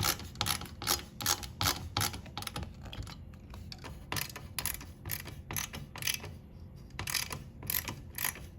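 A screwdriver driving in a CPU cooler's mounting screws: a long run of small, sharp mechanical clicks, about three a second, pausing briefly near the middle before carrying on.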